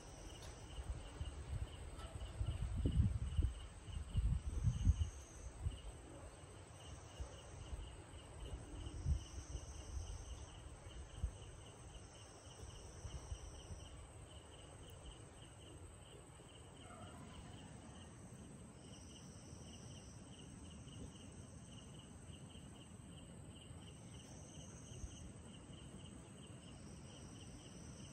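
Night insects: a steady train of cricket chirps, several a second, with longer buzzing calls of another insect coming and going about a second at a time. In the first few seconds, low rumbles and bumps are the loudest sound.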